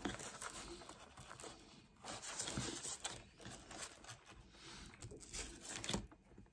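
Hands pulling apart slices of takeaway pizza in its cardboard box: the crust tearing, with irregular rustling and scraping against the cardboard, busiest from about two to three and a half seconds in.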